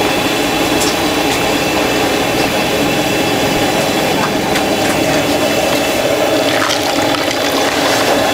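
Steady rushing, sizzling noise from a gas-fired deep-fryer working at a street-food stall, with a few faint clicks on top.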